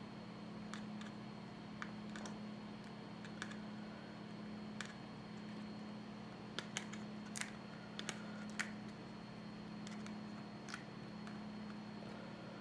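Sparse light clicks and taps of small tools and parts being handled while an iPhone 6 is opened for battery replacement, heard over a steady low hum.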